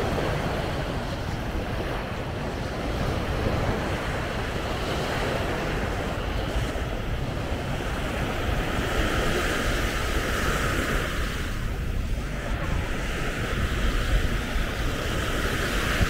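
Small waves washing onto a sandy beach, with wind noise on the microphone.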